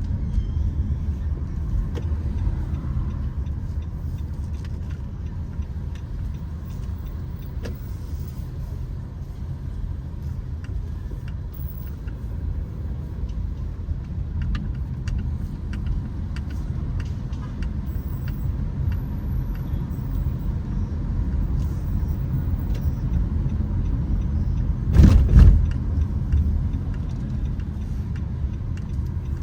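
Car driving on city streets: a steady low rumble of engine and road noise, with a short loud thump near the end.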